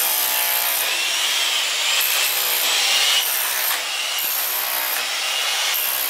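Wood being sawn by hand in uneven back-and-forth strokes, roughly one a second, each with a rasping sweep in pitch.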